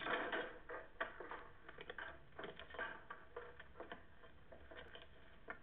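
Irregular light clicks, knocks and rustling, thin and muffled, from a film soundtrack heard through a TV speaker.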